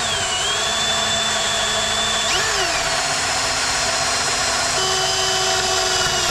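Electric right-angle drill boring out a snapped seat-mounting bolt in a car's floor pan, running steadily under load. Its motor whine shifts in pitch a few times as the bit bites.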